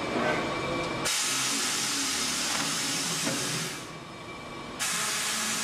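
Compressed air hissing from a tire changer's pneumatic bead breaker in two bursts, each a few seconds long, as the pedal works the breaker against the tire bead.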